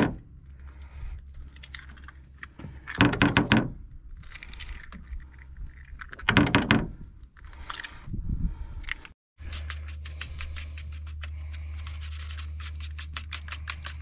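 Eggs being cracked against the rim of a plate: several sharp cracks a few seconds apart, with lighter tapping and shell handling between. A steady low hum sits under the last few seconds.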